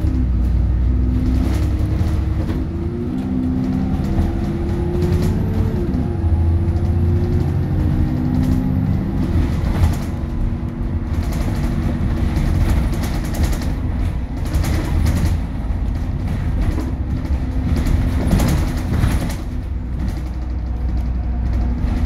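Cabin sound aboard an Alexander Dennis Trident 2/Enviro 400 diesel double-decker bus on the move: a deep engine drone whose note rises and shifts in steps through the first several seconds as the bus pulls away, then settles into a more even running sound with road noise and scattered rattles from the interior.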